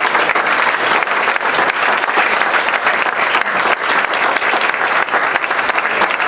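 Wedding guests applauding loudly and steadily after the father of the bride's speech and toast.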